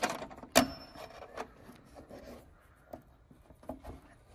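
Small clicks and scraping of a metal T-nut being pushed through a hole in a car hood's inner panel and slid into place by hand, with one sharper click about half a second in.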